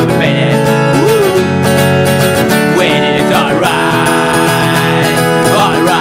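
Acoustic punk song played on acoustic guitar, with steady chords and a few notes gliding up and down in pitch.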